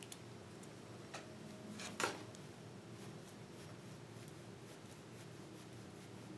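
Faint rustling and light ticking of Cat 6 cable's copper wire pairs being untwisted and straightened by hand, with one sharper click about two seconds in.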